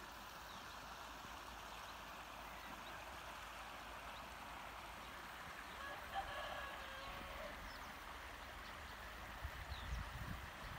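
A rooster crowing once, faint, about six seconds in, over a steady outdoor hiss. A few low buffeting thumps come on the microphone near the end.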